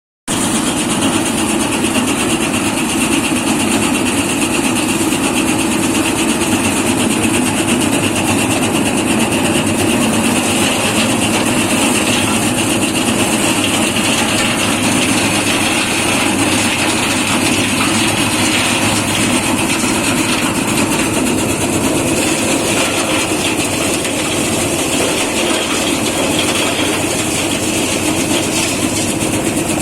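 Edamame threshing machine running steadily, a loud, even mechanical noise.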